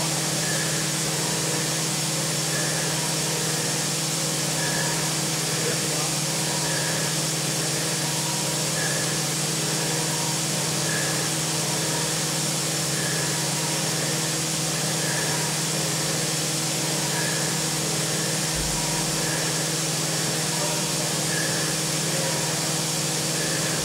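CNC milling machine running steadily as a small end mill cuts slots in a metal mould plate: an even spindle hum with hiss, and a faint high blip about every two seconds.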